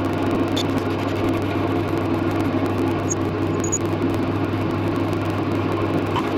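Wood lathe's electric motor running steadily with a low hum.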